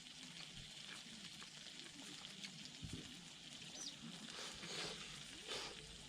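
Faint sizzling of food cooking on a camp grill, with a few soft crackles.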